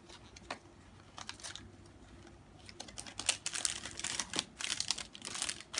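Plastic packaging crinkling and crackling as a squishy toy is pulled out of its wrapper: a few scattered clicks at first, turning into dense crackling about halfway through.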